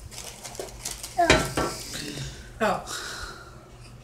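Two short excited exclamations, about a second in and again near the three-second mark, over light clinking of dishes and cutlery on a table.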